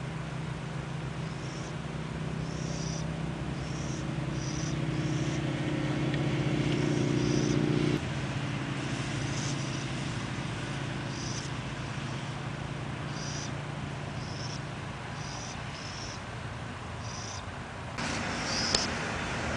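A steady low motor hum that grows louder, drops suddenly about eight seconds in and runs on more quietly, with short high-pitched chirps repeating about once a second.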